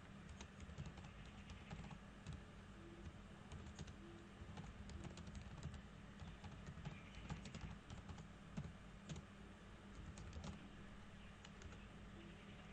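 Faint typing on a computer keyboard: short, irregular keystrokes over a low steady hum.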